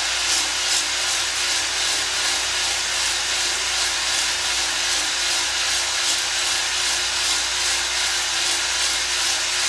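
Electric drill spinning a cylinder hone inside a cylinder bore of a Subaru STI engine block: a steady whir of the drill with the hone's abrasive scraping against the cast bore wall, stopping abruptly at the end.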